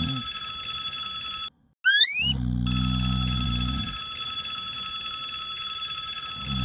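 Cartoon sound effects: a low rumbling tone that breaks off briefly about one and a half seconds in, then starts again with a few quick rising whistles and runs on to about four seconds in. A steady high ringing tone begins about three seconds in and holds to the end.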